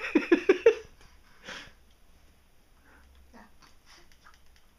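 A quick run of about five short vocal syllables, rising in pitch, in the first second, then a single sniff about a second and a half in, followed by faint breathing and small clicks.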